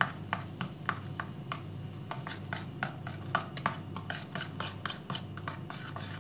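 A metal spoon stirring a thick yogurt, baking soda and lemon paste in a bowl, with quick irregular clicks, about three or four a second, as it knocks and scrapes against the bowl.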